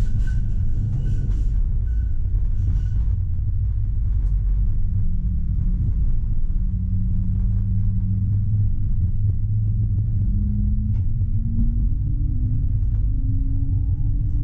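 Tram running on its tracks, heard from the driver's cab: a steady low rumble, with a motor whine rising in pitch from about five seconds in as the tram picks up speed.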